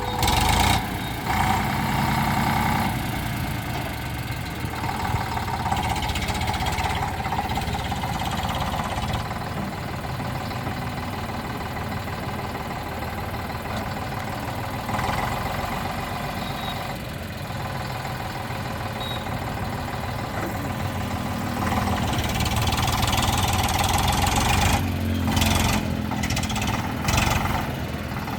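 Eicher 485 tractor's diesel engine running steadily, with a few sharper, louder surges near the end.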